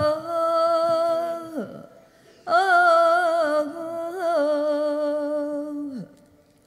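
A woman singing a wordless flamenco vocal phrase in two long held lines with vibrato and a pause between them; the second line sinks in pitch and breaks off about six seconds in.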